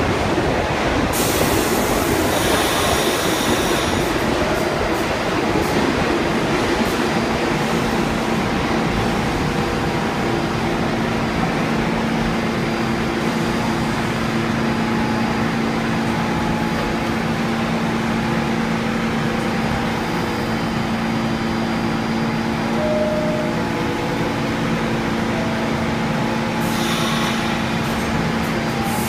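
R46 subway train standing at an underground platform, its onboard equipment running with a steady hum. Two short stretches of hiss come about a second in and again near the end.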